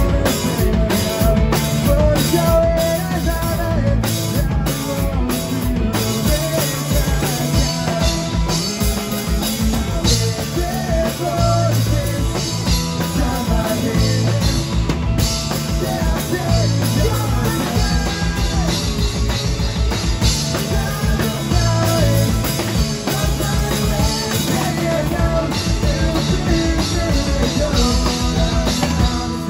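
Live rock band playing loud and without a break: distorted electric guitars, bass and a drum kit.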